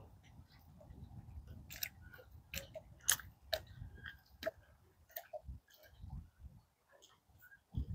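Faint, uneven low rumble of wind on the microphone, with scattered small clicks and knocks, a few of them sharper, a little under two seconds in and again around three seconds in.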